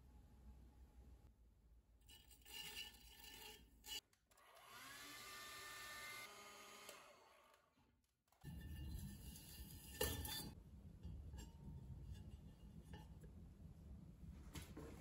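Faint sounds of an electric potter's wheel at work: a low motor hum and wet hands rubbing on the clay rim of a bowl. Partway through, the wheel's motor whine rises in pitch, holds, then fades. About ten seconds in there is a single knock, then handling sounds.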